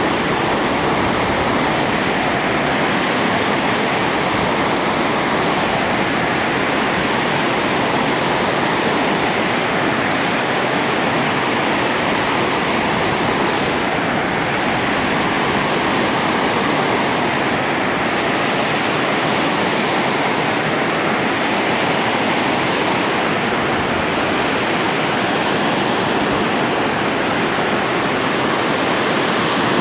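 Spillway water rushing, a loud steady noise of falling and churning water that does not change.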